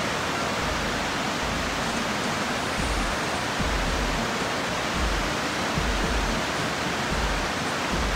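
Small waterfall pouring over a rock ledge into a pool: a steady rushing of water, with a low rumble that comes and goes.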